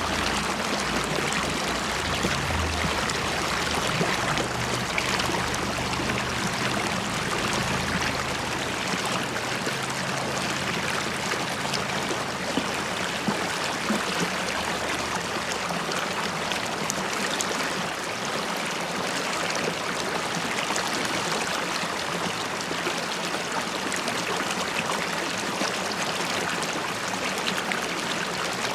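River water flowing and bubbling over rocks: a steady rushing with small gurgles and splashes.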